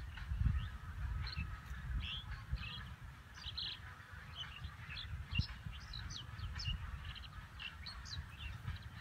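Birds chirping many times in short, high chirps, over an uneven low rumble.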